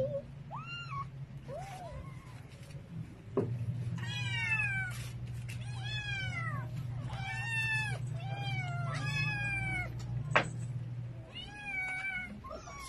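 Several hungry stray kittens and cats meowing at feeding time, begging for food. Their high-pitched calls rise and fall, a few at first, then many overlapping from about four seconds in. A steady low hum runs underneath, with a sharp click about ten seconds in.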